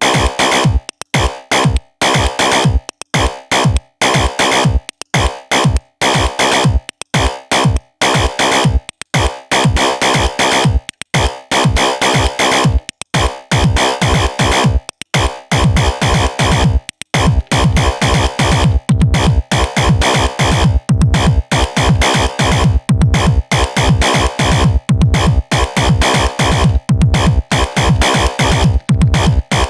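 Elektron Digitone FM synthesizer playing a jam of electronic drum sounds over pitched synth tones, in a fast steady rhythm. About halfway through, a deep kick with a quickly falling pitch comes in on nearly every beat.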